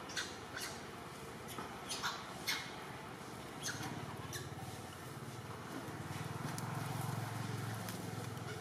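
Macaques giving short, sharp high-pitched squeaks, about a dozen scattered through, over a low hum that comes up about halfway.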